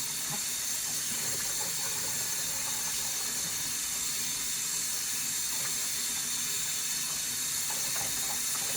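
Tap water running steadily into a sink as a puppy is rinsed under it.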